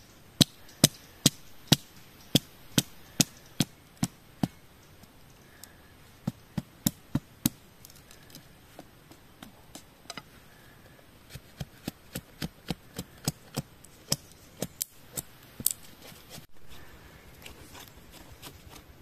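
Machete blade chopping at a bamboo stick held against the ground, sharp knocks at about two a second in runs with short pauses between, as the stick is trimmed and shaped.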